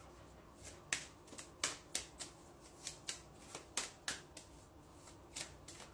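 A deck of reading cards being shuffled by hand: a string of irregular short flicks and snaps of the cards.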